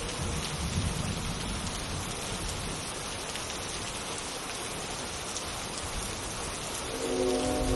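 Steady rain falling. About seven seconds in, a train horn chord synthesized in Reason 10 starts, several steady tones sounding together.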